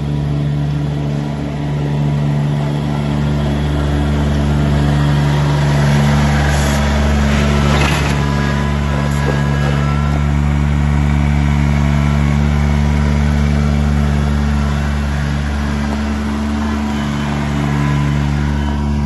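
Kubota BX2660 sub-compact tractor's three-cylinder diesel engine running steadily under throttle as the tractor drives over gravel.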